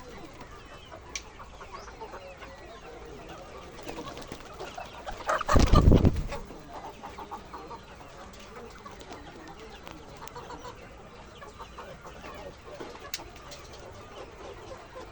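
A flock of egg-laying hens clucking steadily. About five and a half seconds in, a loud, low rumbling burst lasts about a second.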